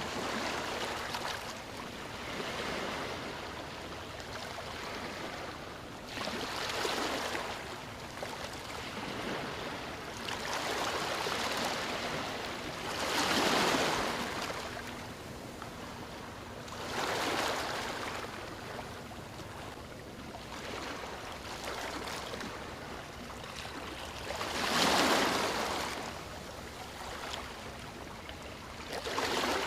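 Waves breaking and washing up on a beach, a steady hiss of surf that swells into a louder rush every few seconds, the strongest about halfway through and again near the end.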